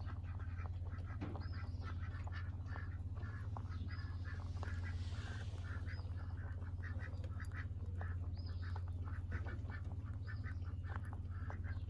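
Ducks quacking repeatedly, short calls one after another, over a steady low hum.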